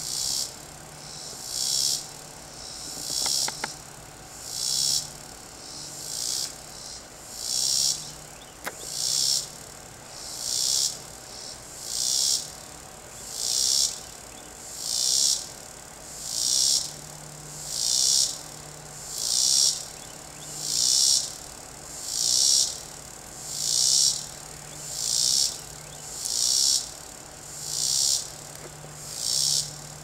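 A cicada singing: a loud, high buzz that swells and fades in a steady rhythm, about one pulse every second and a half.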